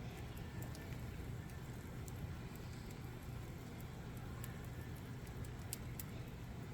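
Campfire burning, the wood crackling with scattered sharp pops over a steady low rumble.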